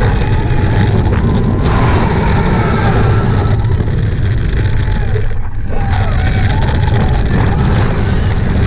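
Wind rushing over an onboard camera and a steady low rumble from a SUPERMAN Ultimate Flight launched roller coaster train running along its track. The rush dips briefly about halfway through.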